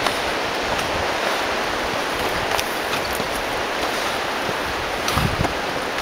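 Steady rush of a mountain stream, an even hiss of running water, with a few light knocks from movement near the microphone.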